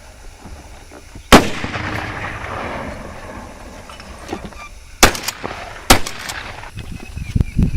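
Remington 870 pump-action shotgun fired three times. The first shot is about a second and a half in and has a long echoing tail; two more follow in quick succession, under a second apart, a little past the middle.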